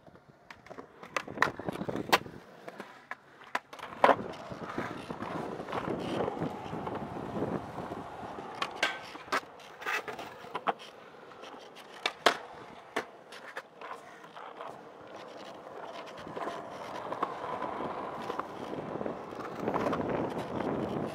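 Skateboard wheels rolling on smooth concrete, broken by a dozen or so sharp clacks of the board's tail and landings hitting the ground. The loudest clacks come about 2 and 4 seconds in.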